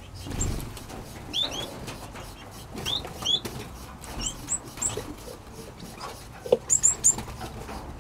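Small aviary birds, finches and parrots, chirping: short rising high chirps, often in pairs, with a quick run of louder, higher chirps near the end.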